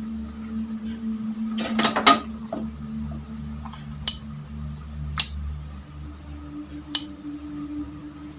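Metal parts or tools clinking and knocking against each other: a loud flurry of clinks about two seconds in, then single sharp clinks three more times, over a steady low hum.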